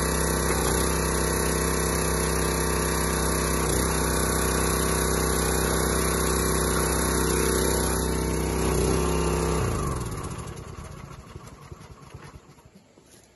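Small gas engine of a log splitter running steadily while the hydraulic ram splits an oak log. About ten seconds in the engine is shut off and winds down, its pitch dropping, until it stops.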